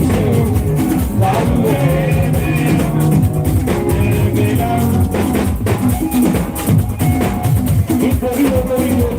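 Loud music with a busy drum beat and guitar, with some singing.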